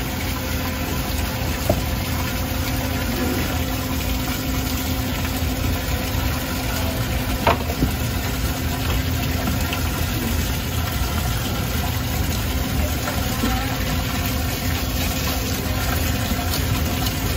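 Steady low machine hum with a tap running into a steel sink, and occasional knocks and scraping as a knife works the scales off snappers on a plastic cutting board; the sharpest knock comes about halfway through.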